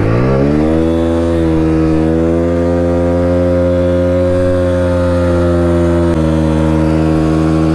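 Motorcycle engine revved up over about a second and then held at steady high revs, its pitch dropping slightly about six seconds in.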